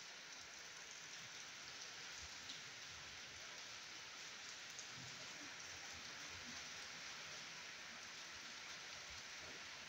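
Faint steady hiss with a few soft clicks.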